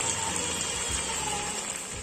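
Chicken pieces frying in hot oil in a pan, a steady sizzle of bubbling oil.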